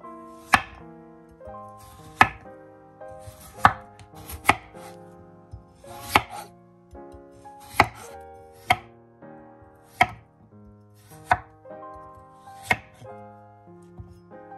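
Santoku knife slicing raw peeled potatoes into rounds on an end-grain wooden cutting board: about ten sharp knocks of the blade striking the board, roughly one every second and a half, over soft background music.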